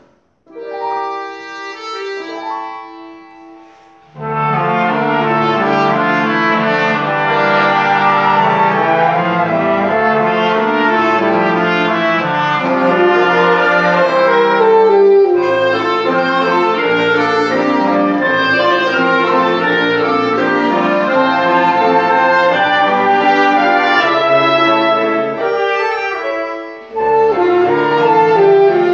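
Live mixed ensemble of strings, winds, brass, piano and percussion playing. A few held notes lead in before the full ensemble enters about four seconds in, and there is a short break a couple of seconds before the end.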